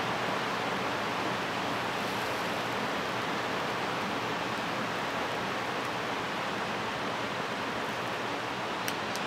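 A handheld torch hissing steadily as it lights the fire starter and wood pellets in a pellet smoke tray, with two faint clicks near the end.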